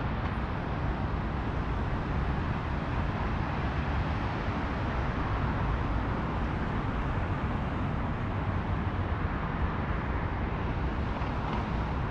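Steady city road traffic: a continuous, even rumble of passing cars with no single vehicle standing out.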